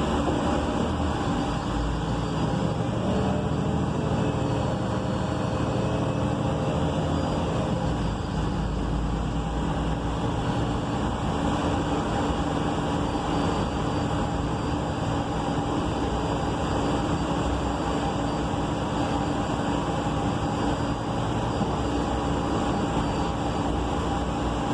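Inside the cabin of a 2020 ENC Axess BRT city bus under way: its Cummins Westport L9N natural-gas engine and Voith D864.6 automatic transmission running with road noise, a steady rumble with a few faint steady whining tones over it.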